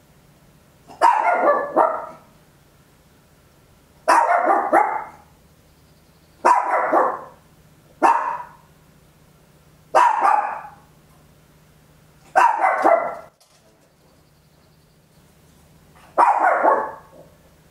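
A small papillon dog barking loudly, seven sharp barks or double barks spaced irregularly one and a half to four seconds apart.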